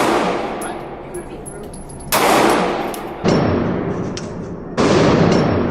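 Three gunshots about a second apart, each a sharp crack with a long echoing decay, near the tail of one just before.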